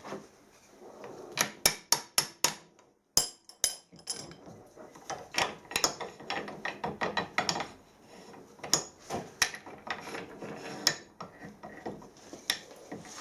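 Sharp metallic clicks, clinks and knocks, some in quick runs, from hand work taking apart a cast-iron pipe cutter.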